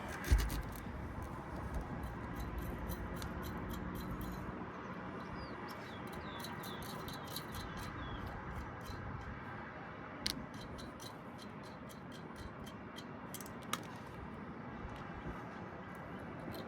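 Light clicks and taps of metal parts being handled while the condenser fan guard is fitted, with a thump just after the start and two sharper clicks later on, over a steady background hum.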